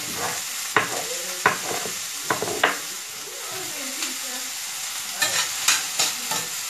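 Chef's knife chopping fresh rosemary on a wooden cutting board: a handful of single sharp knocks in the first few seconds, then a quicker run of knocks near the end, over a steady hiss.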